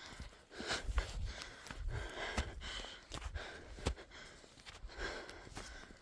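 Heavy breathing in irregular swells, with gusts of wind buffeting the microphone and a few sharp clicks.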